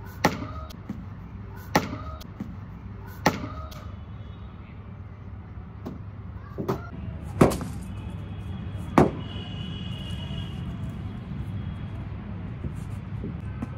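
Sharp knocks of a cricket bat and ball, about six of them a second or two apart, the loudest two about halfway through.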